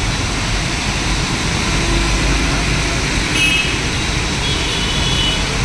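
Heavy rain pouring down on a road as traffic drives through it, tyres hissing on the wet surface and engines running. A high-pitched vehicle horn sounds briefly about three and a half seconds in and again near the end.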